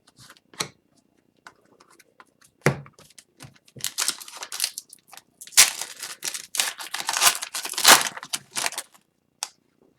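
A foil hockey card pack wrapper being torn open and crinkled, with a few sharp clicks of card handling before the dense crinkling from about four seconds in.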